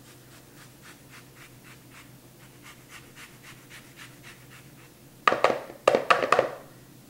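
An orange being zested on a handheld grater: faint rasping scrapes, about three or four strokes a second. About five seconds in, a quick run of loud knocks as the grater is tapped against the bowl to shake off the zest.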